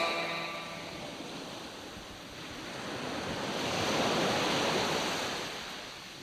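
A steady wash of hiss, like surf, that swells to a peak about four seconds in and then fades, with the tail of a rock passage dying away in the first second.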